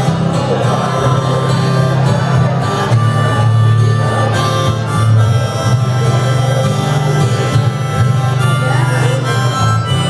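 Harmonica playing the melody of a folk song in an instrumental passage with no singing, over acoustic guitar accompaniment.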